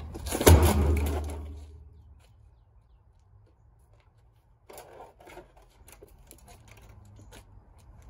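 A red Miele canister vacuum cleaner's plastic body crashing into a steel dumpster about half a second in, with a low ringing from the dumpster walls that dies away over about a second. A few knocks and clatters of plastic against the scrap follow about five seconds in.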